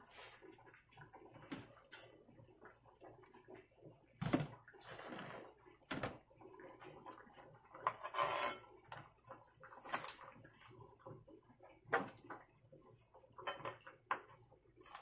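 Irregular kitchen clatter: separate knocks and clinks of utensils on a counter, including a knife on a plastic cutting board, about every one to two seconds, with a longer rattle about eight seconds in.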